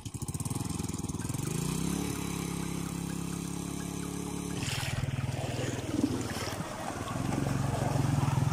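Small underbone motorcycle's single-cylinder engine revving up from idle and pulling the bike through shallow floodwater, the pitch rising over the first two seconds and then holding steady. From about halfway, water splashes and churns around the wheels as the engine eases off, then picks up again near the end.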